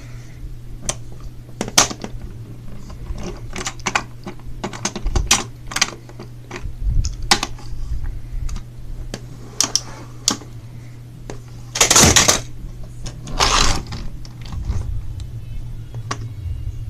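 Clicks, taps and knocks of small toy engines being handled and set down on a plastic train playset, with two longer rattling scrapes about three quarters of the way through, over a steady low hum.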